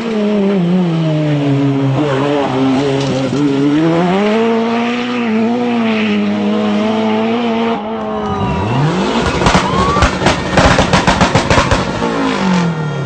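Rally car engines at high revs, the pitch rising and falling through gear changes. About eight seconds in it switches to another car accelerating, with a run of sharp crackles, and its pitch drops as it passes near the end.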